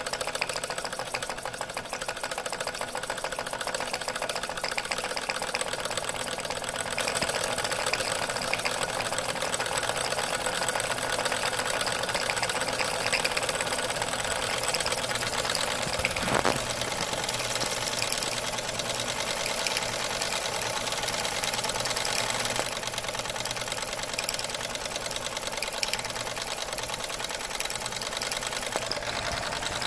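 Bowman 234 live-steam tinplate locomotive running light on blocks, its driving wheels spinning freely, with a fast, even mechanical beat of steam exhaust and motion. The engine is well worn but runs steadily.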